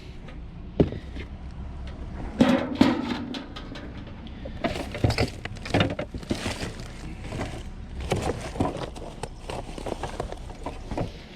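Junk being rummaged through and handled in a curbside trash pile: an irregular run of knocks, clinks and rustles as items are moved about.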